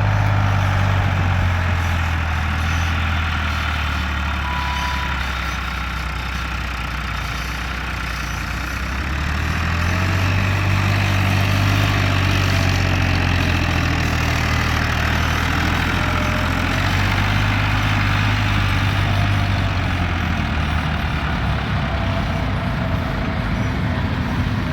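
Farmtrac 60 tractor's diesel engine running steadily on a test run, with its injection pump, nozzles and gears freshly repaired. The engine note eases off slightly and then picks up again about ten seconds in.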